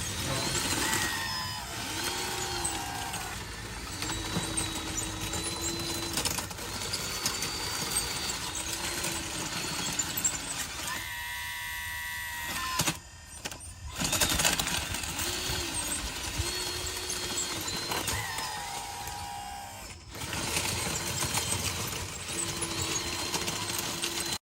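Electric motors of radio-controlled construction models whining in short runs, each one rising in pitch, holding for a second or two and falling away as the machines move and stop, over a steady mechanical hum.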